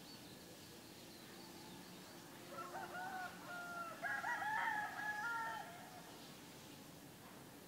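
A rooster crowing: one long crow of stepped pitch that starts about two and a half seconds in and lasts some three seconds. It sounds over a steady low background hum, with faint bird chirps.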